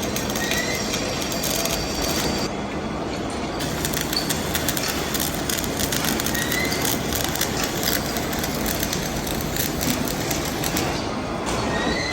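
Metal-turning lathe cutting a large steel shaft: a steady rattling, crackling noise full of small clicks, with a few short faint squeaks.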